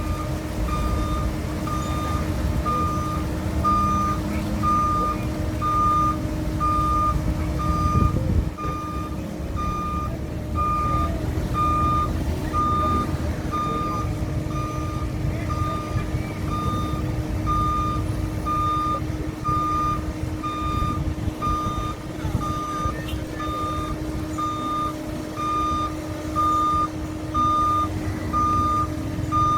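Warning alarm of a CAT 307 amphibious excavator beeping about once a second, over its diesel engine running steadily. A single low thump comes about eight seconds in.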